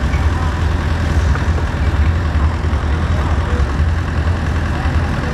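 Modified pulling truck's engine idling steadily with a deep, low sound while hooked to the pulling sled, before the pull.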